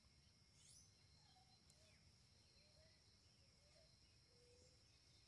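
Near silence: faint outdoor ambience with a steady high insect-like drone and a few faint short chirps.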